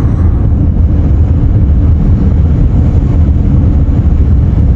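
Steady low rumble of a car driving on the highway, heard from inside the cabin: road and engine noise.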